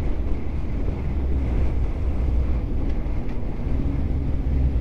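Motorcycle on the move heard from the rider's helmet: a steady wind rumble on the microphone over the engine's drone, with a faint engine note coming up near the end.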